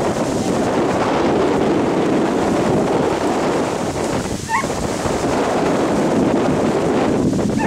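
Steady wind noise buffeting the microphone, with a brief faint high chirp about four and a half seconds in.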